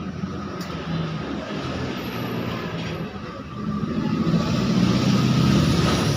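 A motor vehicle engine running steadily, growing louder about four seconds in.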